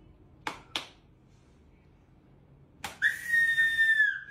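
A few sharp clicks, then a high, steady whistle held for about a second near the end.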